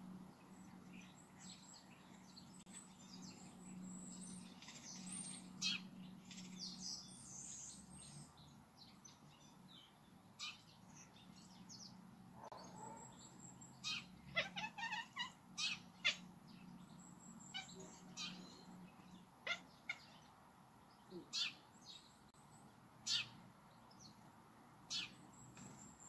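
Domestic cat chattering at birds: a string of short, high chirps, bunched into a quick cluster about halfway through and coming singly and spaced out towards the end.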